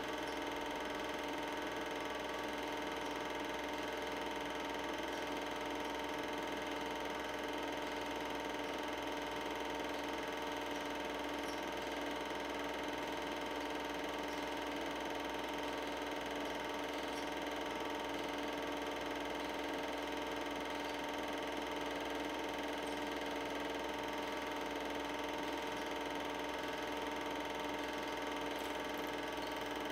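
Super 8 film projector running: a steady mechanical hum and whir from its motor and film mechanism, unchanging in pitch and level.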